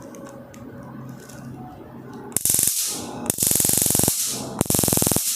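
Handheld stun gun discharging across its electrodes in three bursts of rapid electric crackling, each under a second, loud and harsh: "terrible".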